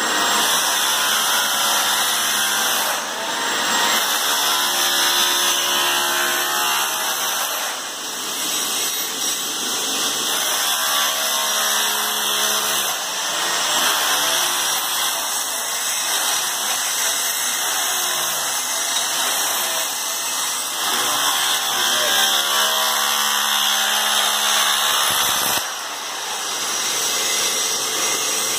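Bosch rotary hammer with a chisel bit running steadily as it chips glued-down wood flooring off the subfloor, easing off briefly a few times.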